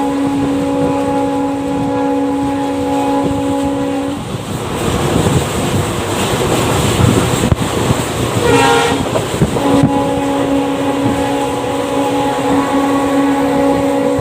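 WDP4B diesel locomotive's horn sounding a long steady blast. After about four seconds it stops as the train rushes past at speed with a loud rumble and wheel clatter, a brief shifting horn note comes through, and then the horn blows steadily again until just before the end.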